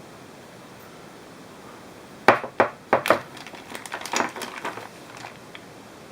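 A burst of sharp clicks and knocks from hard objects being handled, starting about two seconds in with four loud strikes, then lighter clattering that dies away near the end, over a steady hiss.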